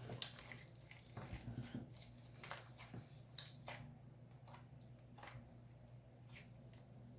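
Yellow cloud slime being stretched and squished by hand, giving faint scattered crackles and soft sticky pops over a low steady hum.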